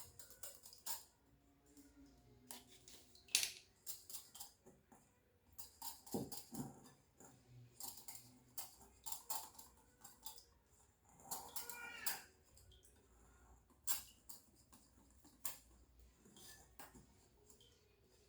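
Irregular light clicks and taps of a sieve and bowl as flour is sifted and mixed into cake batter, with a short squeal about twelve seconds in.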